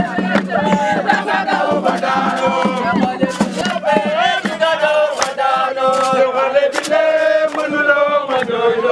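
A group of voices singing a chant together, holding long notes, over sharp percussive beats.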